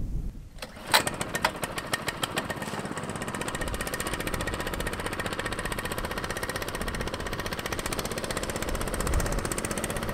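Small gas mud motor on a duck boat starting: a few sharp, irregular pops about a second in as it catches, then it settles into steady, fast running.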